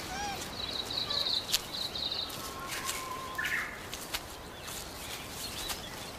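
Forest ambience: birds calling, with a high trill heard twice in the first couple of seconds, short chirps, and scattered sharp clicks and rustles.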